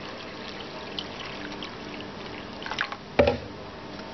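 Water poured over rice and green moong dal in a glass bowl, then the grains being washed by hand: the water trickles and sloshes, with a brief louder splash about three seconds in.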